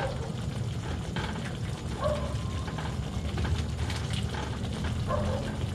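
Cooking pan sounds: scattered clicks and knocks of a utensil against the pan over a low steady rumble, while ingredients are added to the sauce.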